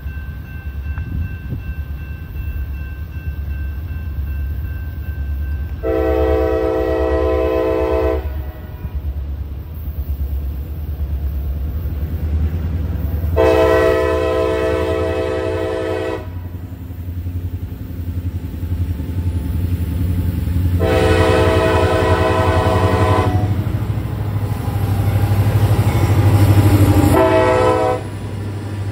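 Diesel freight locomotives approaching with a low engine rumble that builds as they draw close, while the horn sounds three long blasts, each about two to three seconds, and then a short one near the end.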